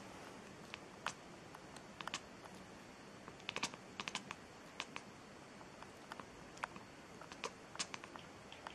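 Irregular light clicks and taps, some single and some in quick little clusters, over a faint steady hiss.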